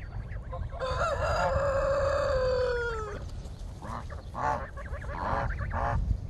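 A rooster crows once, a long call of about two seconds that sinks slightly in pitch at its end. Softer, shorter calls from a flock of geese follow in the second half.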